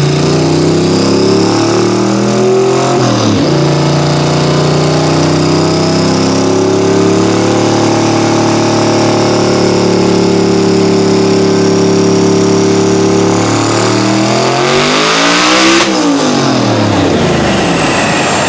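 A high-horsepower car's engine under full throttle on a chassis dyno. The revs dip sharply about three seconds in, as at a gear change, then climb steadily and rise faster near the end before falling away as the throttle is lifted.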